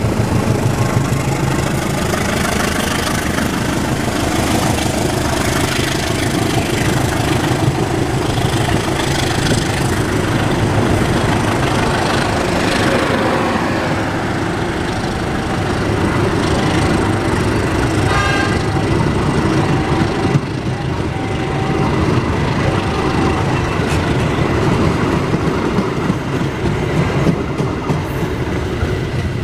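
CC201 diesel-electric locomotive passing close by with its engine running, then its passenger coaches rolling past, wheels clattering over the rail joints. A brief tone sounds a little past halfway, followed by a few short beeps.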